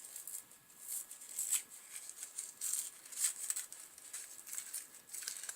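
Packaging rustling and crinkling in irregular bursts as it is opened and handled by hand.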